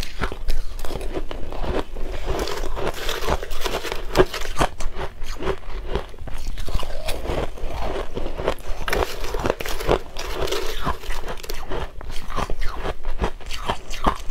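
Crushed ice coated with matcha powder being bitten and chewed close to the microphone: a dense, irregular run of sharp crunches.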